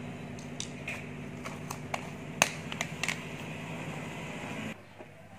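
Small plastic items clicking and tapping against a plastic storage container as they are packed into it, a handful of short clicks with the sharpest about halfway through. A steady fan-like hum runs underneath and cuts out near the end.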